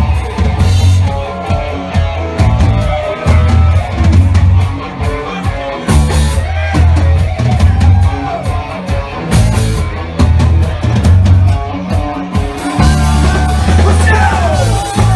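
Live rock band playing loud, with drum kit, electric bass and guitars.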